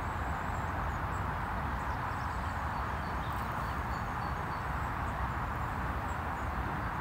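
Steady outdoor background noise, with faint high bird chirps now and then.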